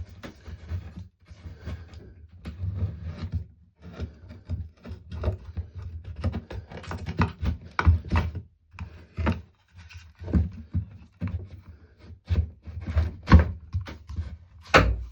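Irregular knocks, thuds and rustling of hands-on work close to the microphone, with a heavier thump near the end.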